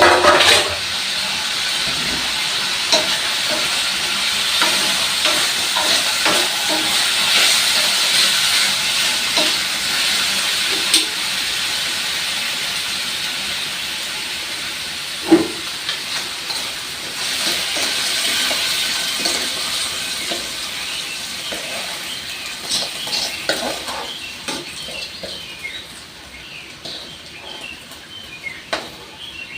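Hot oil sizzling steadily as food fries in a pan, with occasional clicks and scrapes of a utensil and a sharper knock about halfway through; the sizzle dies down over the last few seconds.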